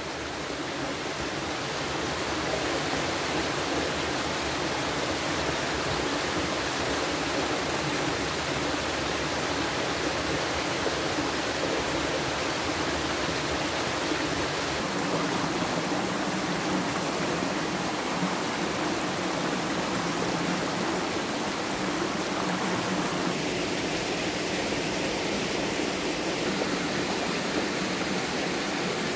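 Mountain stream rushing steadily over rocks and small cascades, its tone shifting slightly about halfway through.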